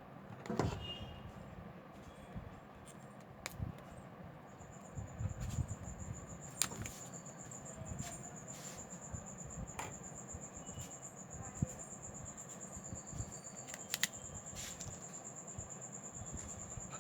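Scattered light clicks and taps of small tools and parts being handled during a phone repair, with a steady high-pitched whine that starts about four seconds in.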